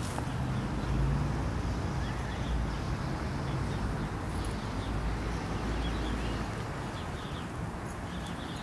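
Outdoor park ambience: a steady low rumble with faint bird calls now and then.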